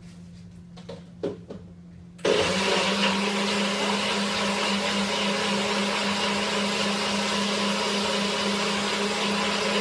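Personal single-serve blender starts suddenly about two seconds in, after a couple of light clicks, then runs steadily, blending watermelon, orange and hibiscus-infused water into a smoothie.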